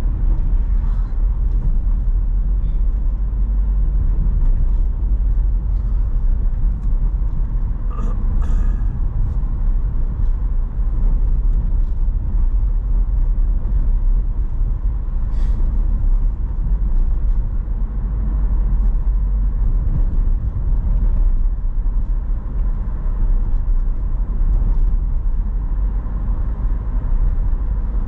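Steady low rumble of a car driving along a highway, with engine and road noise. There are a couple of brief clicks about eight and fifteen seconds in.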